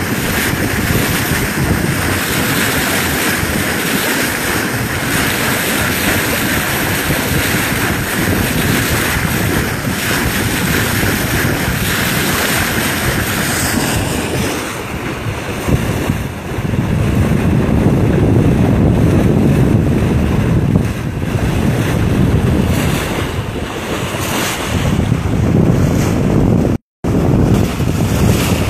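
Bow wave and spray rushing along a sailboat's hull under way, with wind buffeting the microphone. The wind rumble grows heavier about halfway through, and the sound drops out for a moment near the end.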